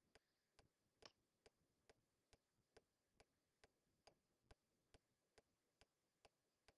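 Very faint, evenly spaced ticking, a little over two ticks a second, over otherwise near silence.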